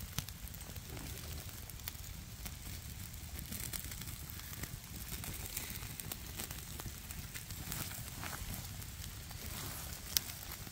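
Small open wood campfire burning and crackling, with scattered pops and one sharper pop about ten seconds in.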